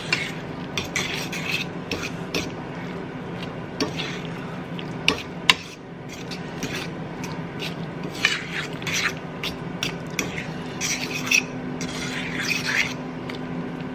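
Metal spoon stirring and scraping thick cauliflower and cheese sauce around a stainless steel skillet, with a few sharp clinks of the spoon against the pan, over a steady low hum.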